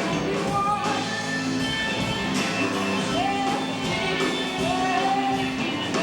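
Live rock band playing, with a steady drum beat under a lead melody that slides up and down in pitch.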